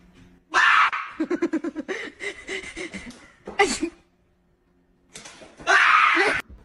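A sudden loud shout or scream, followed by about two seconds of quick bursts of laughter. Another loud scream near the middle and a last one near the end come between short pauses.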